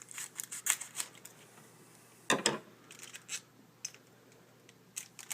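A foil trading-card pack being opened and its cards handled: scattered crinkles and clicks of wrapper and card stock, the loudest about two and a half seconds in.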